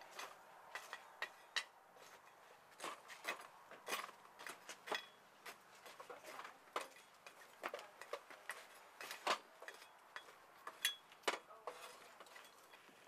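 Irregular metallic clinks and knocks as a charcoal barbecue grill is worked by hand, a few of them ringing briefly.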